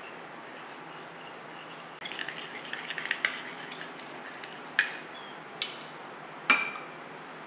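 Kitchen utensils clicking and clinking against bowls and dishes: about two seconds in, a patch of light scraping and quick clicks, then three separate clinks, the last one ringing briefly.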